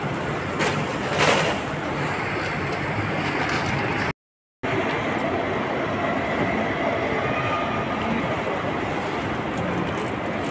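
Steady rumbling background noise of a large airport terminal hall, with a few sharp clicks in the first second and a half. The sound cuts out briefly a little after four seconds in.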